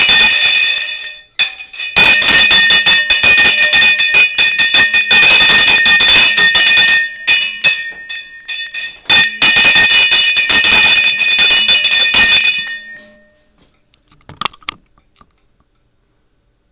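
A bell ringing rapidly and loudly with a steady high ring, in several long bursts with short breaks, stopping about 13 seconds in.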